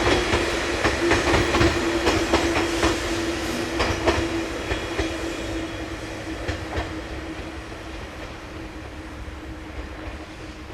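E351 series tilting electric train running past, its wheels clacking over rail joints over a steady hum. The clacks thin out and the sound fades steadily as the train moves away.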